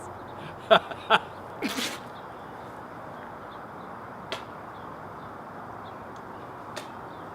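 Two short bursts of a man's laughter, then a breathy rush of air about two seconds in. After that only faint room noise with a couple of small clicks.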